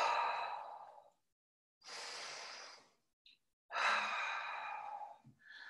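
A woman breathing deliberately in time with an exercise: three audible, breathy breaths about a second long each, the first and last the loudest.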